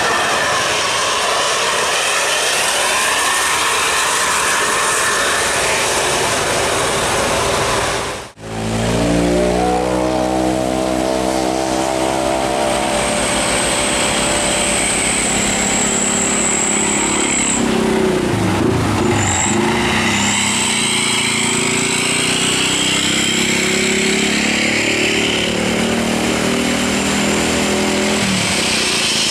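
Steady vehicle and road noise, then, after a sudden cut about eight seconds in, a bus engine running at a steady pitch with a thin high whine above it. Its revs dip and climb back once about two thirds of the way through, and drop again near the end.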